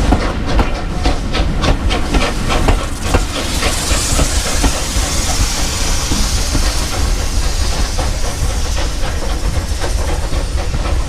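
Steam locomotive working: a rapid run of sharp beats, about four a second, over a low rumble. About three seconds in, a loud steady hiss of steam sets in and carries on.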